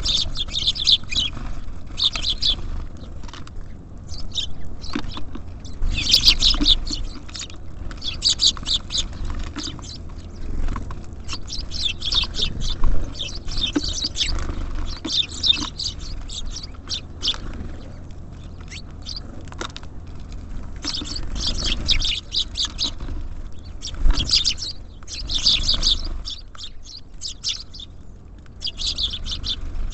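Small songbirds at a feeder chirping, with bouts of quick high chirps following one another every second or two.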